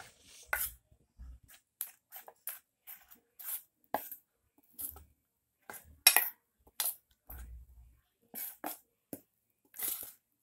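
Metal spoon stirring thick dhokla batter in a stainless steel bowl, scraping and clinking against the bowl in quick irregular strokes, a few a second, the loudest about six seconds in.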